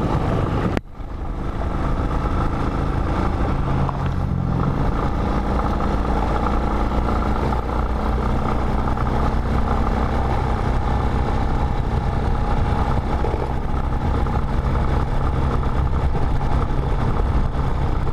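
Motorcycle engine running steadily while riding a dirt road, with a noisy rush over it; the sound drops out abruptly for a moment about a second in.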